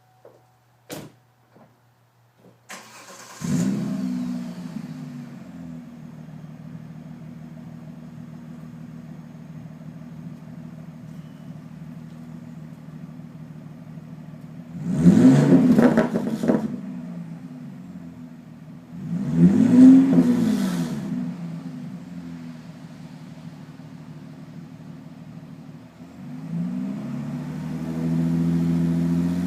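2003 Cadillac CTS V6 with the muffler cut off: a few clicks, then the engine starts about three seconds in and settles to an idle through the straight, unmuffled exhaust. It is revved twice, then held at a raised speed near the end.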